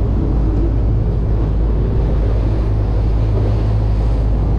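A boat's engine running steadily with a low drone, and wind noise on the microphone.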